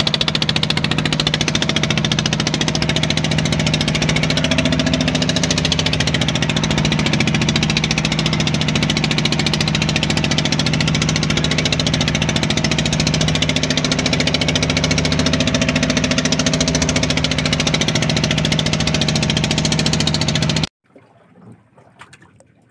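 Small fishing boat's engine running steadily and close at an even speed. It stops abruptly about two seconds before the end.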